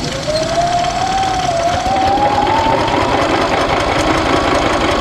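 Golf cart starter-generator turning over a Honda GX340 engine when switched on by the key switch, with a whine that rises in pitch over the first three seconds and then holds steady.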